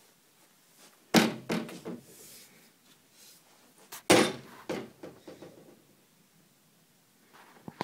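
Two loud thumps about three seconds apart, each followed by a few lighter knocks.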